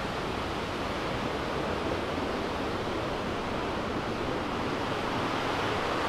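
Waterfall rushing steadily, a constant even wash of falling water: the Cascada Los Alerces on the Río Manso.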